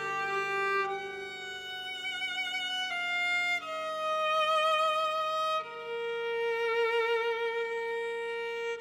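Viola playing a slow melody with wide vibrato, stepping down through several held notes and then sustaining one long note from about two-thirds of the way through, over quiet sustained low notes.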